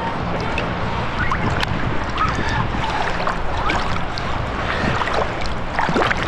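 Seawater sloshing and gurgling close to the microphone while wading in the shallows, with short bubbly chirps, most about six seconds in.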